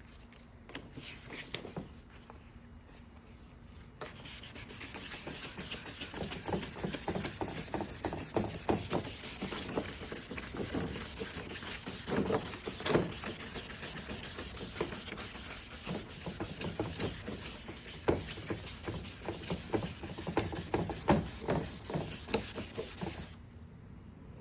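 400-grit sandpaper wet-sanding a plastic headlight lens by hand in circular strokes, a rapid rasping rub that removes the old, chipped clear coat. After a few faint strokes, steady sanding starts about four seconds in and stops just before the end.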